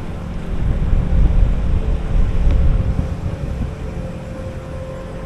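A car's low engine and road rumble, swelling and then easing off, with a steady hum coming in midway.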